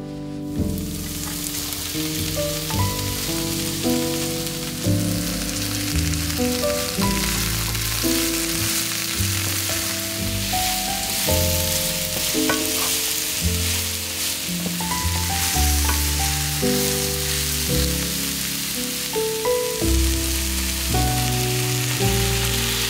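Sliced zucchini, red pepper and onion sizzling as they fry in a pan, stirred with a wooden spatula, over background music.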